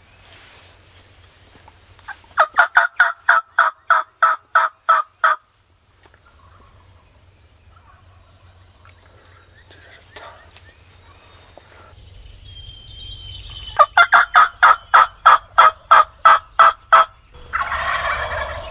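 Rio Grande wild turkey toms gobbling: two loud gobbles, each a rapid rattling run of about four notes a second, one a couple of seconds in and one past the middle. A rougher loud burst follows just before the end.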